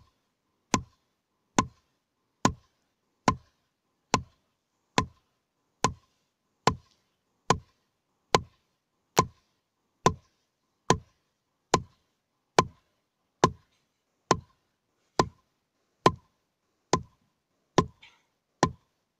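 Repeated blows driving a wooden tethering stake for cattle into hard ground, an even beat of sharp knocks with a dull thud under each, a little more than one a second.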